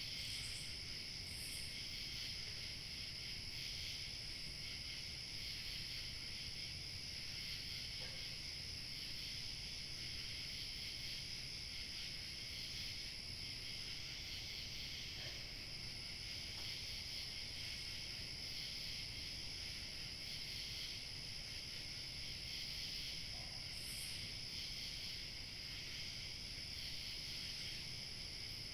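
A steady, high-pitched chorus of chirping crickets, unbroken throughout, over a faint low rumble of light wind.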